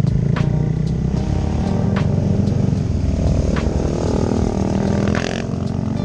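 Dual-sport motorcycle engine running while riding, its note shifting in pitch about halfway through, with sharp ticks about every second and a half.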